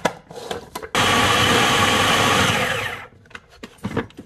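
Food processor running for about two seconds, mixing dry vital wheat gluten with seasoning and a little oil, then winding down and stopping. A few light clicks and knocks from the bowl come just before it starts.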